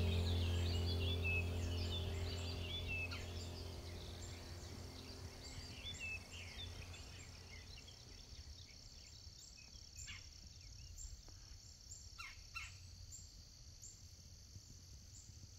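Small birds chirping and twittering over the tail of fading background music. Then a quieter stretch of outdoor ambience with a few sharp bird calls and a steady high-pitched hum.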